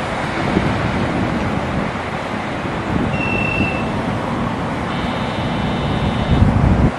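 Utsunomiya LRT HU300 tram standing at the platform with its equipment running, under steady wind noise on the microphone. A short high beep comes about three seconds in, and a higher buzzing tone lasts for about a second and a half near the end, as the wind rumble swells.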